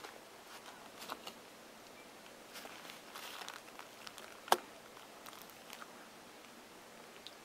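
Soft scrapes and small clicks of fingers working a SIM card into a Jolla phone's SIM slot, with one sharp click about four and a half seconds in.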